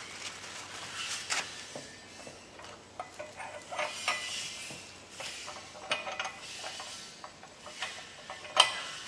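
Metal clinks, scrapes and clicks of hands working the regulator fitting on the valve of an oxygen cylinder, with a sharp click near the end.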